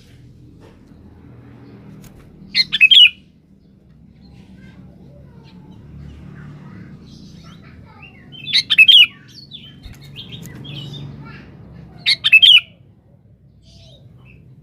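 Sooty-headed bulbul (kutilang) singing: three short, loud bursts of bubbly notes a few seconds apart, with faint chirps between them, over a low steady background hum.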